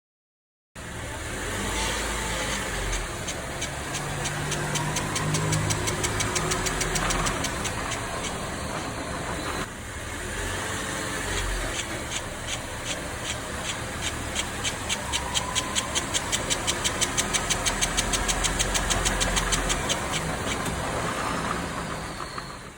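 Car driving with an abnormal noise: a rapid, regular ticking over the steady road and engine noise.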